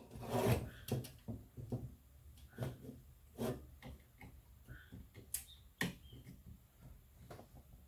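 Scattered clicks, knocks and rubbing of small plastic and metal parts being handled as the fan's connector is pushed into its socket inside an opened computer power supply, with the loudest knocks about half a second, three and a half seconds and five and a half seconds in.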